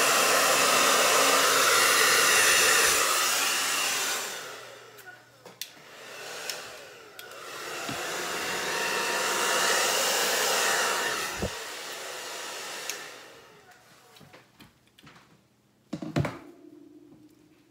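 Hair dryer blowing on high, pushing poured acrylic paint outward across the surface. It cuts off about four seconds in, runs again more softly for a few seconds in the middle, then stops, leaving a few small clicks and a sharp knock near the end.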